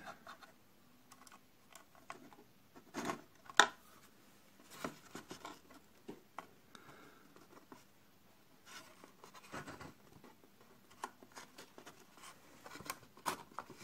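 Scattered light clicks, taps and scratches of small parts of a toy wooden ox wagon being handled and fitted by hand. The loudest is a sharp click about three and a half seconds in.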